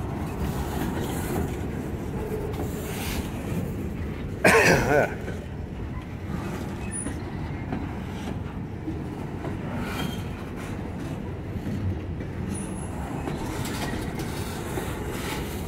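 Freight cars (boxcars and a bulkhead flatcar) rolling past close by: the steady rumble and clatter of steel wheels on the rails. A brief loud squeal comes about four and a half seconds in.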